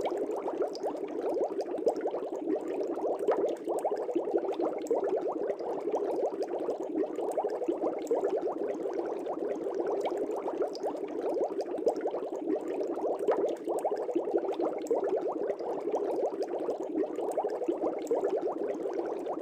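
Air bubbles rising through water in a fish tank, a steady continuous bubbling made of many small, rapid pops.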